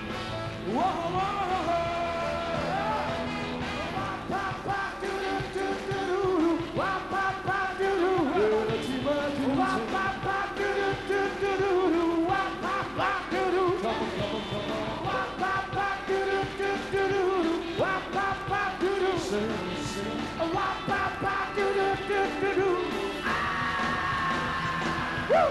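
Rock and roll band playing live, with a lead line of held and bending notes, several sounding together at times, that fits a harmonica played into the microphone.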